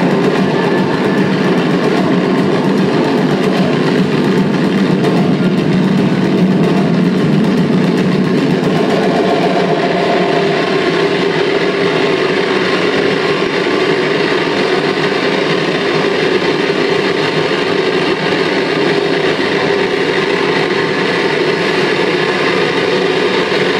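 Live harsh electronic noise music played loud through a PA: a dense, steady wall of noise over a low drone, its tone shifting slightly about ten seconds in.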